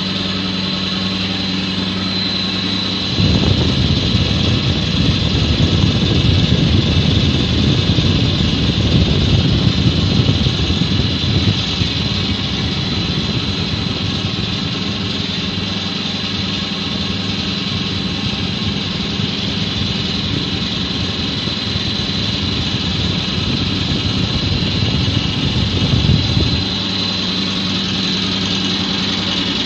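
Blown film plant machinery running: a steady mechanical drone with a thin high whine and a low hum, and a louder rough rumble from about three seconds in until near the end.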